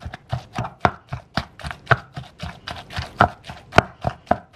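Wooden pestle pounding cooked fish flesh and chili paste in a clay mortar, a steady run of strokes about four a second.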